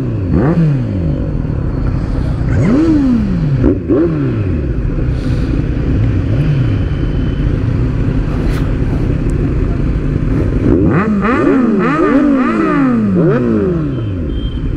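Several big sport motorcycles idling together and being revved in repeated short throttle blips, each engine note rising and falling, with a flurry of overlapping blips near the end.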